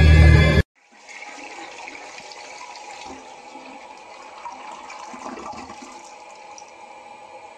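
Loud music cuts off suddenly within the first second. Then a toilet flushes, water rushing and swirling steadily in the bowl.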